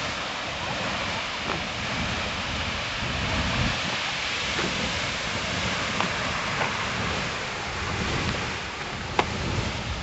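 Beehive Geyser erupting: a steady rushing hiss of its water-and-steam column jetting from the cone, with a low rumble beneath. A single sharp click about nine seconds in.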